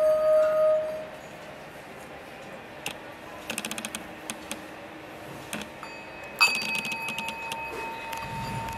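Hand-beaten singing bowls: one bowl's ringing tone stops about a second in, followed by a few light metallic clinks. About six and a half seconds in, a small bowl is struck with a wooden mallet and rings with a higher, steady tone, with a short rattle of clicks at the rim as it starts.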